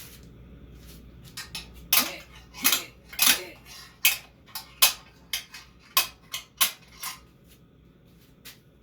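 A run of about fifteen sharp metal clinks and knocks at irregular spacing, hand tools striking and rattling against the minibike's steel frame and motor parts during disassembly, the loudest in the first few seconds.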